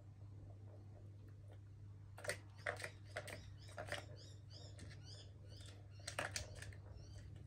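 Plastic balls clicking and rattling in a cat ball-track tower as a kitten bats at them: bursts of sharp clicks about two seconds in, a run of small quick ticks as a ball rolls round the track, and another burst of clicks near the end, over a low steady hum.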